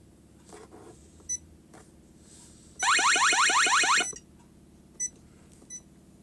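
Intruder-alarm siren (the bell) sounding briefly under test: a loud tone that sweeps rapidly upward about eight times a second for just over a second, then cuts off. A few faint short clicks around it.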